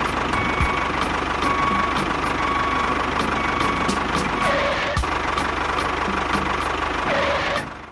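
An engine running steadily, stopping abruptly near the end.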